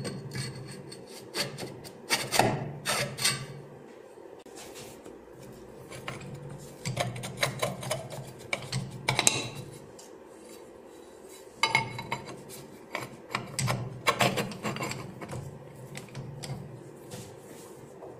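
Steel pipe and lathe parts being handled: a pipe slid into a four-jaw lathe chuck, the chuck key turned to close the jaws, and a tool holder set onto the tool post. Irregular clusters of metal knocks, clinks and scraping come three times, with quieter pauses between.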